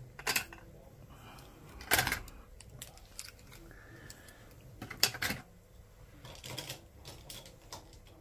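Scattered clicks and light knocks of small objects being handled, with louder taps about two and five seconds in and a few quicker clicks near the end.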